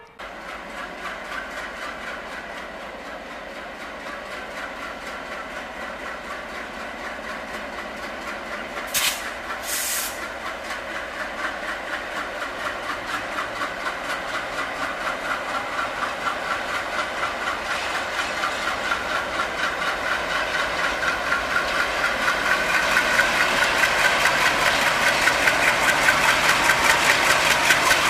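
Indian Railways WDG3A diesel locomotive with its ALCO V16 engine running hard as it pulls a passenger train away from a station, a throbbing engine beat that grows steadily louder as it approaches and passes. Two short hisses come about nine and ten seconds in.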